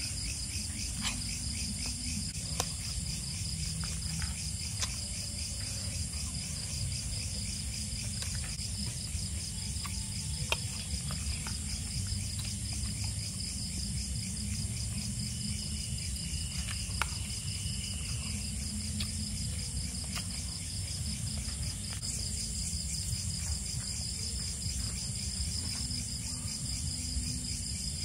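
Crickets trilling steadily in a dense, rapidly pulsing chorus. A few light clinks of spoons against plates and the pot are scattered through it.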